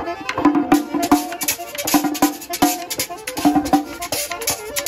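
Upbeat music with a quick, steady beat of drums and hand percussion under pitched instrumental notes, cutting in suddenly from silence.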